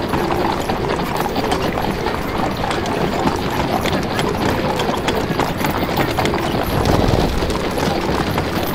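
Many horses' hooves clip-clopping on a street over a dense, steady street din, as in added sound effects for horse-drawn traffic. A low rumble swells briefly about seven seconds in.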